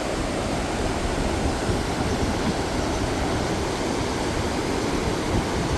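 Swollen river after days of heavy rain, its fast flood water rushing in a steady, even roar.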